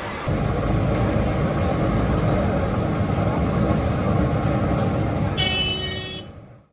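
Street traffic rumbling steadily, with a brief high-pitched vehicle horn toot about five seconds in, then the sound fades out.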